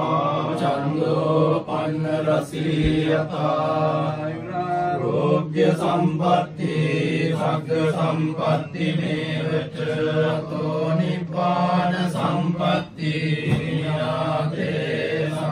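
Theravada Buddhist chanting: several voices hold a steady low note while a wavering melodic line moves above it.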